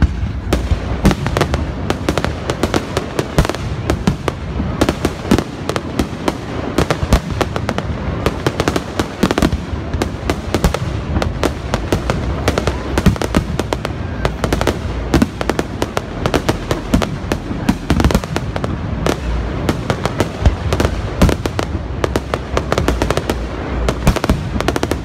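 Aerial fireworks shells bursting in a continuous barrage, a dense run of sharp bangs and crackles, many a second, over a steady low rumble.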